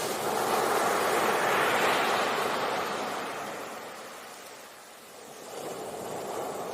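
Sea waves breaking and washing on a beach: a wave surges up about a second in, fades away, and the next begins to build near the end.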